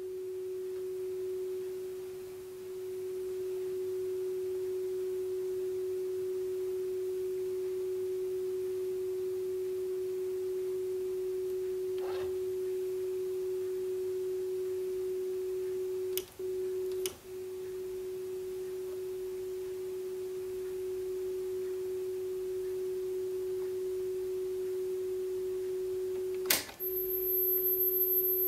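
Technics RS-B100 cassette deck's built-in test oscillator putting out a steady 400 Hz calibration tone, used for setting record level and bias. A little past halfway two clicks briefly cut the tone, and near the end another click brings in a second, very high 12.5 kHz tone alongside it.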